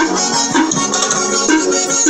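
Music with a steady beat played loud through a homemade mini paredão, an array of small speakers with a central horn; little deep bass comes through.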